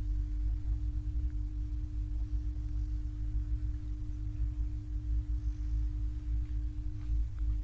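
A steady, constant hum on one pitch over a continuous low rumbling noise.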